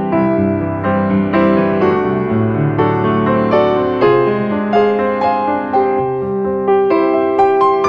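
Background piano music: a melody of single notes over lower held notes.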